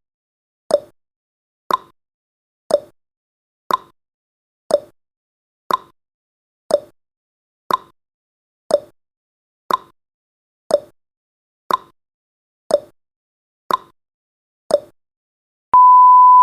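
Countdown timer sound effect ticking once a second, each tick short and sharp. Near the end the ticking stops and a steady high beep starts as the timer reaches zero.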